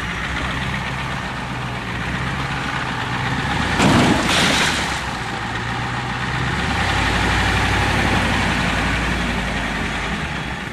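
Ford truck engine running, with a loud crunching impact of metal on metal about four seconds in as the truck rams a car. A heavier low engine rumble follows from about seven seconds in.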